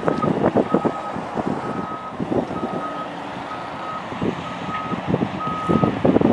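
Back-up alarm of a Cat 777G haul truck beeping about once a second as the truck reverses into loading position, over the low rumble of heavy diesel machinery.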